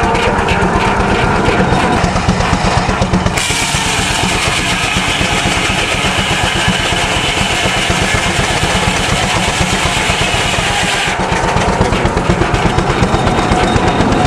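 A large 5-foot circular sawmill blade cutting through a log for about eight seconds, starting about three seconds in: a bright, loud hiss over the steady rapid thumping of the belt-driven mill machinery. The mill is powered by a steam traction engine.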